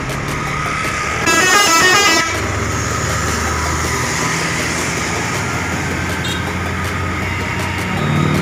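Tour bus horn sounding a quick run of changing notes for about a second, then the bus engine running steadily as it passes.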